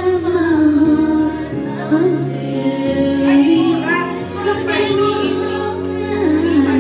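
A woman singing karaoke into a microphone over a backing track of steady held chords.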